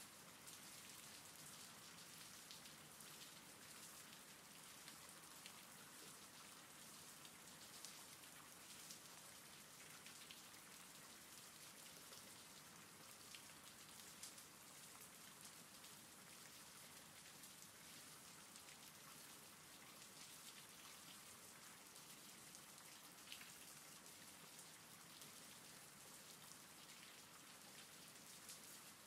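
Faint, steady rain, with many small individual drops ticking through a constant hiss: a rain-sounds ambience track.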